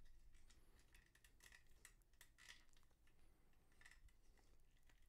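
Faint, scattered clicks of a plastic Transformers Grimlock action figure's parts being folded and snapped into place during its transformation.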